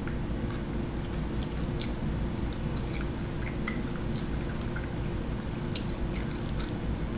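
A person eating from a takeout carton with a metal fork: chewing, with scattered small clicks, over a steady low hum.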